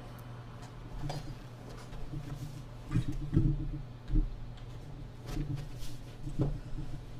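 A steady low hum with a handful of irregular knocks and bumps, the loudest cluster about three to four seconds in, like gear or the camera being handled.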